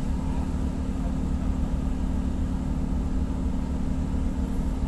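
Ship's engine running with a steady low drone that does not change.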